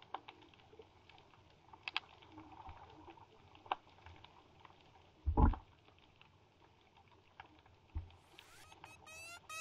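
Faint scattered clicks and taps, with a louder dull thump about five seconds in and a smaller one near eight seconds. Near the end a rising electronic sweep begins, leading into dubstep music.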